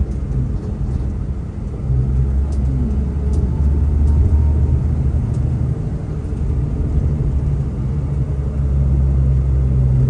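Transfer coach's engine running, heard from inside the passenger cabin: a steady low drone that grows louder about two seconds in and again near the end.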